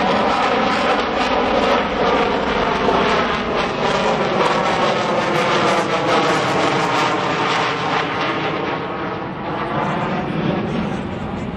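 Lockheed Martin F-22 Raptor's twin Pratt & Whitney F119 afterburning turbofans in flight: loud, steady jet noise with slowly sweeping tones, gradually fading as the jet flies away.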